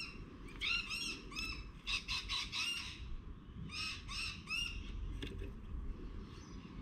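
A bird calling in short bursts of harsh, repeated, arching notes, four or five notes to a burst, three bursts in a row, stopping about five seconds in.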